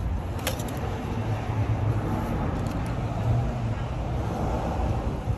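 Steady low vehicle rumble, with one sharp click about half a second in.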